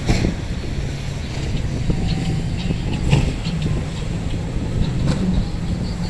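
Boat engines running steadily as boats cross rough water, over a constant wash of waves on the rocks, with a few short sharp splashes or buffets.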